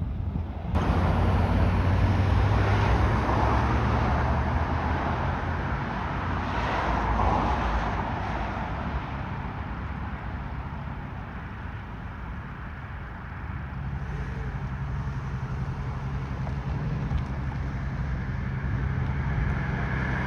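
Road traffic: a motor vehicle engine hums steadily under a wash of tyre and road noise, swelling for several seconds as traffic goes by.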